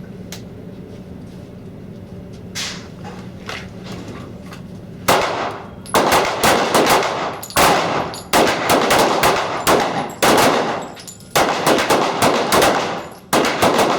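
Handguns fired by several shooters along a firing line: after a short pause, a few fainter shots, then from about five seconds in a rapid, irregular volley of loud overlapping shots. This is a timed six-round string.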